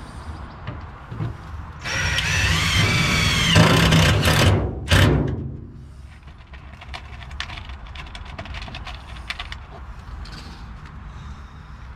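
Cordless drill driving a self-drilling screw through a metal angle strip into the truck bed: about two seconds in the motor runs for roughly three seconds, its whine sagging as the screw bites, and stops with a sharp knock. Small clicks and taps follow as screws are handled.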